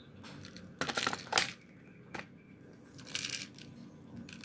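A magazine being pushed into an airsoft spring M1A rifle: a cluster of plastic clicks and rattles about a second in, ending in a sharp snap as it seats. A single click follows, then a short scraping clack from the rifle being handled near the end.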